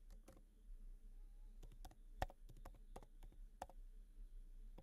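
Faint computer-keyboard typing: a scatter of soft key clicks at uneven intervals, one a little louder about two seconds in.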